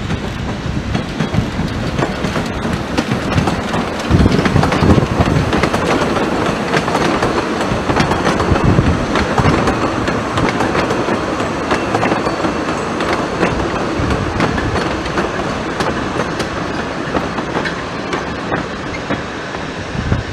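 Narrow-gauge steam saddle-tank locomotive and its coaches passing close by: a steady rumble with the clickety-clack of wheels over rail joints. It swells to its loudest as the coaches go by, about four to ten seconds in, then eases off as the train moves away.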